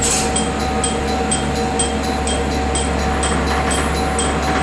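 The diesel engine of a KiHa 47 railcar idles, heard from inside the passenger cabin. The low drone holds steady, with a faint high tick repeating about twice a second.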